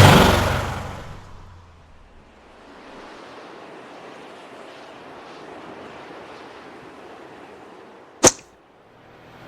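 A car passes and fades away, followed by a soft steady whoosh of noise. About eight seconds in comes a single sharp crack, the loudest moment after the car.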